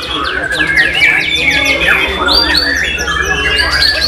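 White-rumped shama singing loudly, a rapid run of quick chips and sweeping whistles, with many other caged songbirds singing over it at the same time.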